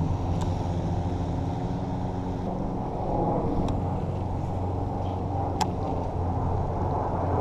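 A steady, muffled, low machine hum, like a motor running, with a few faint clicks.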